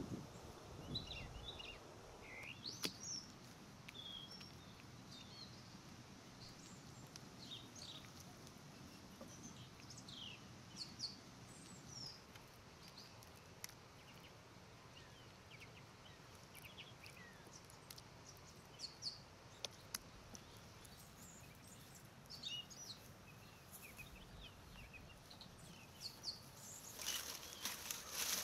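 Quiet outdoor ambience with small birds chirping: short, scattered calls throughout. Near the end come dry twigs and brush rustling and crackling as they are pushed into a mud stove's firebox.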